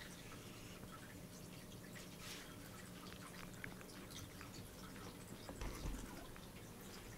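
Faint scattered clicks and fur rustling from a cat being stroked as it rolls on a shaggy rug, with a low thump about six seconds in.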